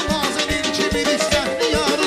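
Live band music with a saxophone playing an ornamented melody over a steady drumbeat.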